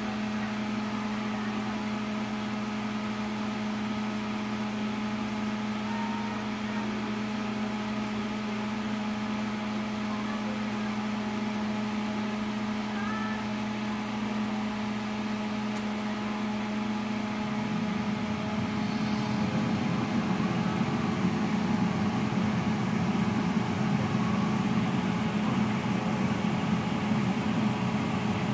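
Tidylife air fryer running: the steady hum of its fan and heater, with a low steady tone. About two-thirds of the way through the hum turns louder and rougher.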